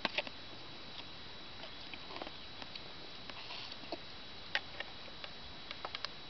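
Wood campfire crackling, with irregular sharp pops and clicks over a steady hiss.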